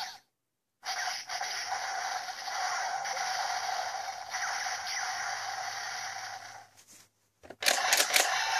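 A Genesis Driver toy's electronic finisher sound effect after its 'Cherry Energy Squash' call. It plays through the toy's small speaker as a steady, noisy sound with a held tone, lasting about six seconds. Near the end come a few sharp plastic clicks as hands take hold of the driver.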